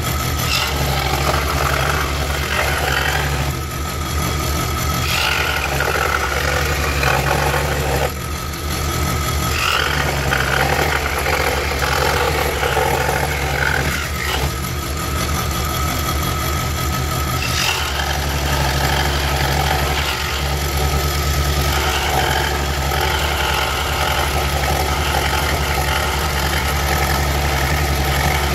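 Woodstar SD16 scroll saw running, its reciprocating blade cutting through a wooden board with a steady low hum and buzz that dips briefly now and then as the cut turns.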